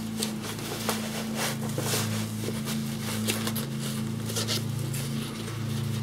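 Scattered rustling and clicking handling sounds as an insulation blanket is worked around a camper fridge's cooling unit, over a steady low hum.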